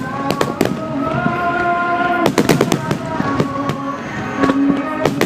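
Aerial fireworks bursting, with many sharp bangs and crackles in quick clusters, the densest about two seconds in. Music with long held notes plays underneath.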